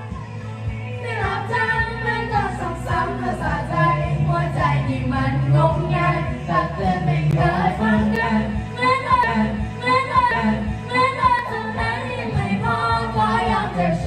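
Karaoke: a girl singing a song into a microphone over a music backing track.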